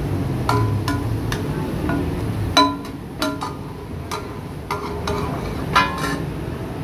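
Metal spatula striking and scraping a large flat iron tawa while chopping chicken: irregular sharp metallic clanks, each with a short ring, the loudest about two and a half seconds in and near the end.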